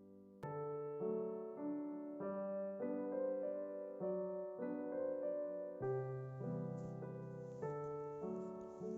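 Background piano music, a gentle run of chords that change about every half second to a second.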